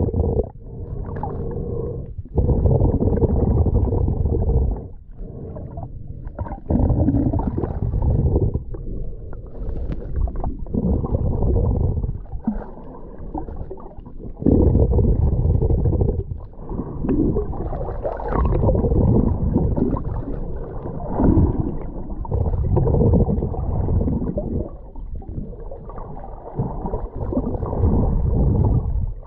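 Sea water churning close against the microphone: a muffled low rumble that swells and drops irregularly every few seconds.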